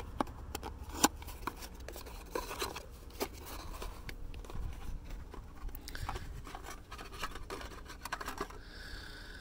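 Scattered light clicks and scrapes of small parts being handled and set down on a plastic engine-bay panel: a new camshaft position sensor, its bolt and a socket. The sharpest click comes about a second in, over a low steady rumble.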